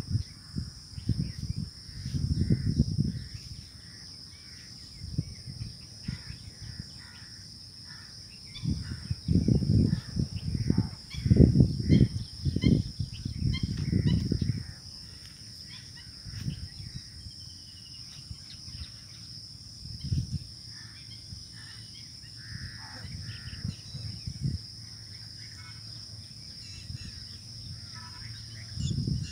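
Outdoor rural ambience: a steady high-pitched insect drone throughout with faint bird calls, broken by irregular low rumbling gusts on the microphone, heaviest in the first few seconds and again from about 9 to 15 seconds in.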